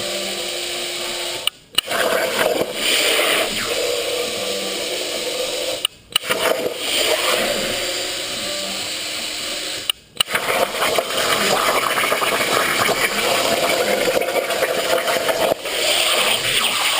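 CNC plasma cutter torch cutting 11-gauge hot-rolled steel, a steady hissing, crackling arc. It cuts out briefly three times, about a second and a half, six and ten seconds in, between cuts, and each time it restarts abruptly with a sharp crack.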